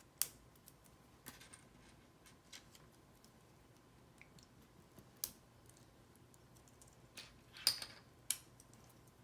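Scattered sharp clicks of plastic LEGO pieces being handled and pressed together, a few separate taps with a small cluster of clicks near the end.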